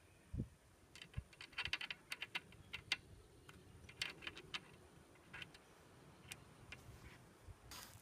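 Quick, irregular light metallic clicks and taps as a small metal washer is handled and slipped back onto the splined rear axle of a Piaggio Fly scooter, with a dull bump just after the start.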